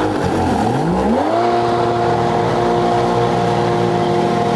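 Jet ski engine pulling a wakeboarder out of the water: the pitch dips, then climbs sharply about a second in and holds steady and high at full throttle.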